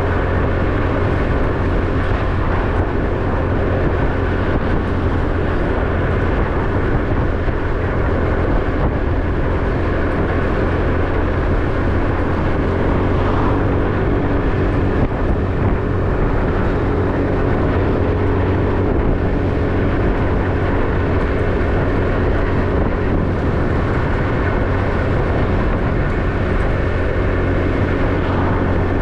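Small motorbike engine running steadily at cruising speed, with wind and road noise.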